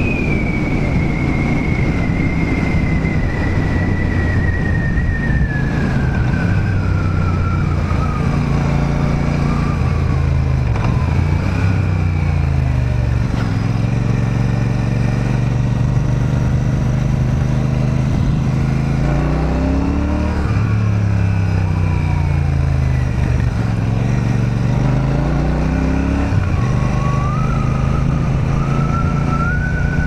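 Royal Enfield Super Meteor's 648cc parallel-twin engine running while the motorcycle is ridden, its note dropping and climbing again twice past the middle as it slows for a turn and pulls away. A high thin whine falls slowly in pitch over the first dozen seconds.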